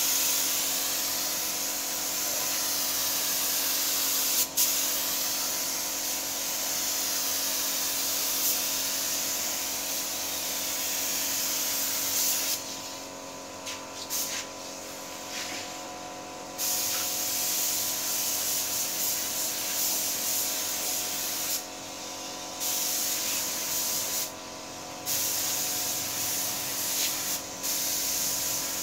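Paint spray gun hissing as it sprays paint onto a car door. The hiss cuts out several times when the trigger is released, for a few seconds about halfway through and briefly three more times near the end, over a steady hum.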